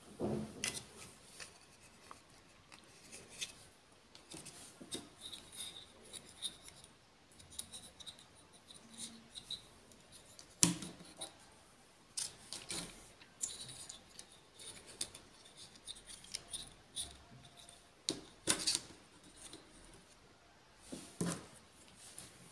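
Small blocky plastic Minecraft toy figures being handled and set down on a tabletop: scattered light clicks and taps of plastic, with a few sharper knocks.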